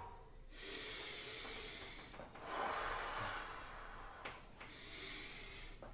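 A person breathing deeply and audibly: three long, airy breaths in a row, each lasting one to two seconds.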